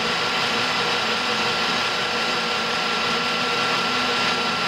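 Colchester lathe running steadily with a continuous high tone over its mechanical noise while taking a turning cut on a small-diameter workpiece.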